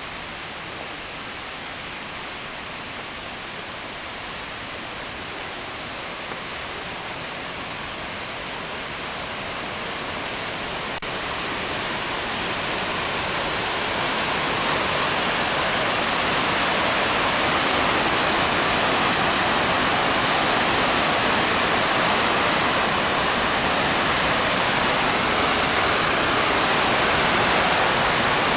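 Helmcken Falls, the plunge waterfall on the Murtle River, making a steady rush of falling water. It grows louder from about ten seconds in as the falls come closer, then holds steady.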